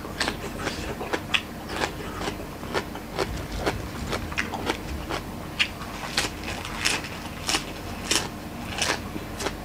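Close-up crunching and crackling of crisp raw lotus stems and fresh vegetables being chewed, in irregular sharp bites a few times a second.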